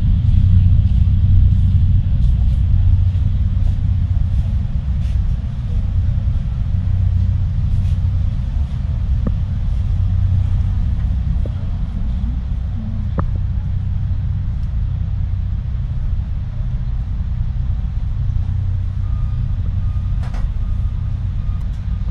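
Steady low engine rumble from the docked Fast Cat catamaran ferry's machinery.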